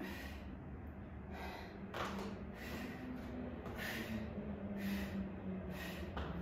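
A woman breathing hard under exertion during weighted kettlebell lunges: short, forceful breaths about once a second.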